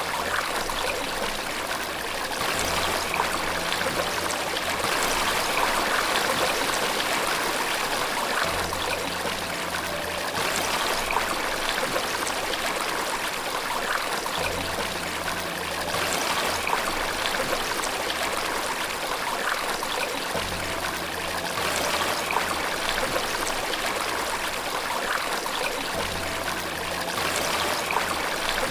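Flowing water, a steady rushing and trickling with no let-up. Faint low sustained notes sound under it about every six seconds.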